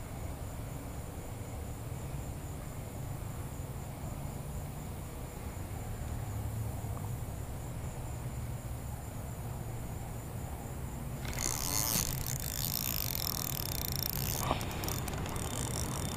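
Low wind rumble on the microphone with a faint, steady, high insect drone. About eleven seconds in, a louder close rustling starts, with a few sharp clicks, from the rod and spinning reel being handled right by the microphone.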